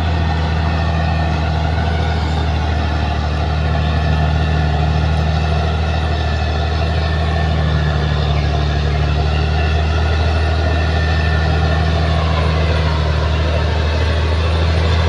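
Bulldozer's diesel engine running steadily under load, a deep constant drone with a fainter wavering whine above it.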